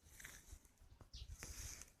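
Faint rustling with a couple of light clicks, and a brief bird chirp about a second in.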